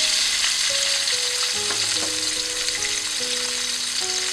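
A whole flour-coated tilapia deep-frying in hot oil in a pan: a steady, dense sizzle and crackle of bubbling oil.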